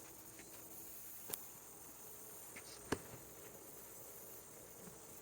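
Near quiet room tone with faint hiss, broken by two small sharp clicks about a second and a half apart.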